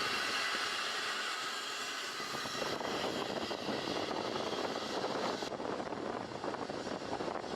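Steady rushing noise of a jet airliner's engines, shifting in tone about two and a half seconds in and again about five and a half seconds in.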